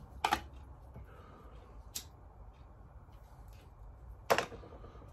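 Cigarette lighter being flicked: three sharp clicks about two seconds apart, the loudest about four seconds in, with a few fainter ticks between them.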